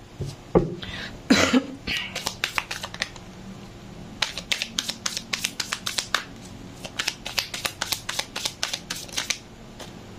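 Tarot cards being shuffled by hand, the cards slapping against each other in a run of quick clicks, about five a second through the second half, after a couple of louder snaps near the start.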